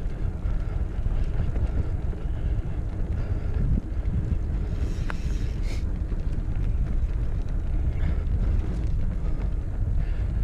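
Wind buffeting the microphone over the low rumble of a Specialized Stumpjumper 6fattie mountain bike rolling along a dirt trail, with a few faint ticks and rattles about halfway through.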